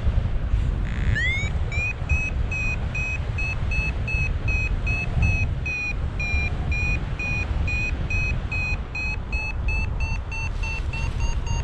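Paragliding variometer beeping steadily, about three short beeps a second, the rapid beeping signalling a climb in lift; its pitch rises a little near the end. Strong wind buffets the microphone underneath.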